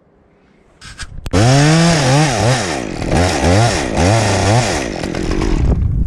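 Chainsaw starting up a little over a second in and revving, its pitch rising and dropping several times, then falling to a lower, rougher running sound near the end.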